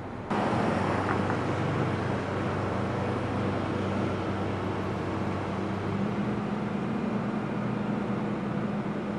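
Diesel engine of a John Deere excavator running steadily, its revs rising slightly about six seconds in.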